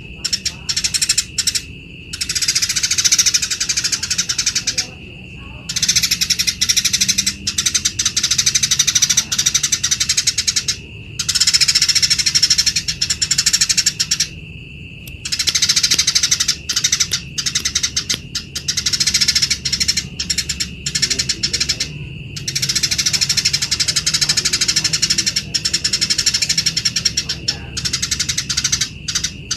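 Eurasian tree sparrows giving harsh, rapid fighting chatter in dense bursts several seconds long with short breaks between, over a steady high tone.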